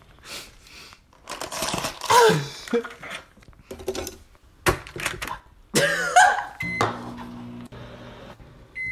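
Frozen food packages rustle and clatter as they are pulled from a freezer. Then a microwave oven's keypad beeps, and about seven seconds in the oven starts running with a steady hum, with another short beep near the end.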